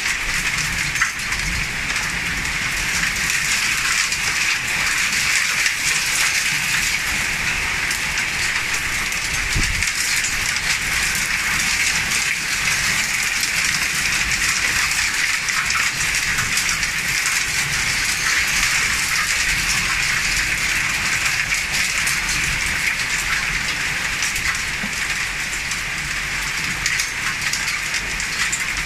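Heavy thunderstorm rain pouring down in a steady, dense hiss.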